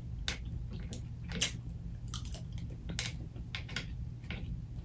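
A person chewing a mouthful of lettuce-wrapped chicken sandwich: irregular wet mouth clicks and smacks, about two or three a second, over a steady low hum.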